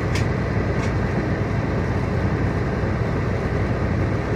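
Coach engine running with a steady low rumble, heard from inside the passenger cabin, with two short hisses about a second apart near the start.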